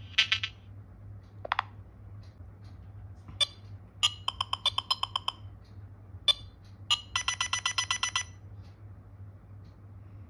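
Nothing OS ringtone and notification sounds played one after another on the phone: short electronic blips, and two quick runs of rapid bleeps lasting about a second each, around four and seven seconds in. A steady low hum runs underneath.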